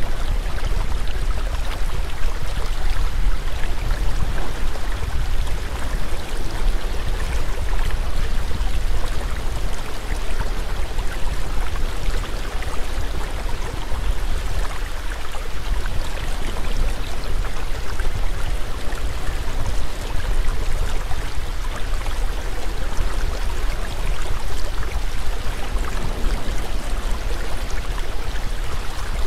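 Steady rushing water, like a flowing stream, running on without change.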